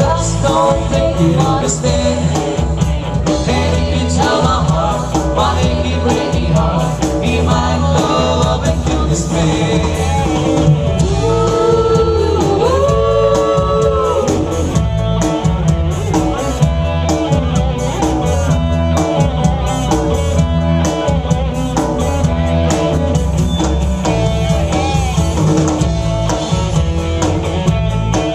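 Live band playing a dance number through PA speakers: drum kit, electric guitar and a heavy bass line keep a steady beat, with a wavering lead melody over it.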